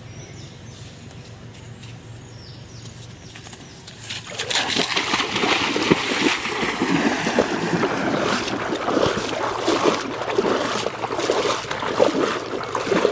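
Feet splashing and churning through shallow flood water as a person runs and wades through it, starting suddenly about four seconds in. It is an irregular, dense splashing with many sharp slaps of water.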